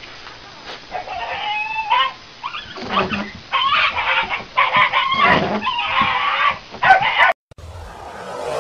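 A small terrier giving a run of high-pitched yelps and whines, several in a row. Near the end the sound cuts out and electronic intro music with a rising whoosh starts.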